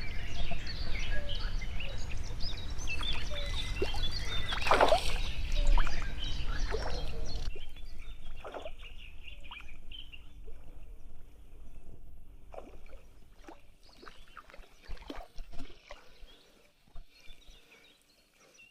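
Small birds chirping busily over a low steady rumble. About seven seconds in the rumble drops away suddenly, leaving fainter chirps and a few short clicks.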